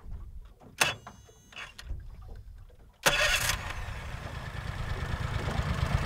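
Outboard motor, cowling off, being pull-started: two short pulls of the starter cord about a second apart, then about three seconds in the engine catches and keeps running. It is the restart of a motor that had been overheating after silty mud clogged its cooling-water intake.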